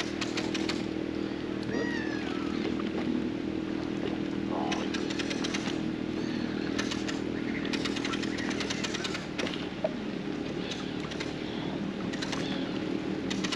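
Boat outboard motor running at a steady speed, with short bursts of hiss coming and going over it.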